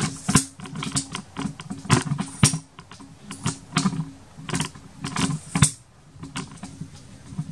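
Irregular clicks, knocks and rubbing from a camera device being handled and moved about, over a low steady hum.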